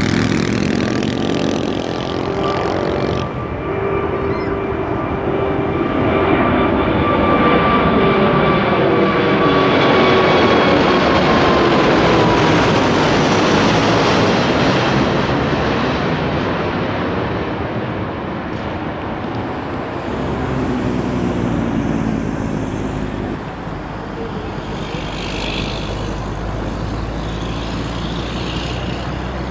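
Airbus A380's four Rolls-Royce Trent 900 turbofans at climb power, passing overhead just after takeoff. A loud jet roar with steady engine whines swells to its loudest about ten seconds in. The whines drop in pitch as the aircraft goes over, then the sound eases to a lower rumble as it flies away.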